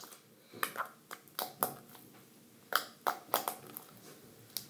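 Hands handling slime, making about ten short, irregular clicks and pops with gaps between them.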